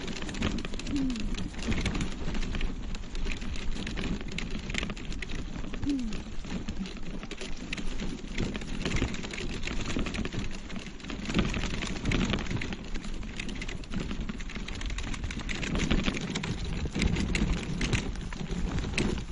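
Bicycle and Burley Solo trailer riding over a rough, bumpy gravel and grass path: tyres crunching and the trailer frame and hitch clattering with constant small jolts. A few short falling squeaks in the first few seconds.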